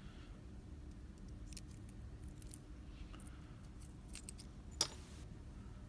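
Small metallic clicks and taps as a lock cylinder and a screwdriver are handled, with one sharp, louder metal clank near the end.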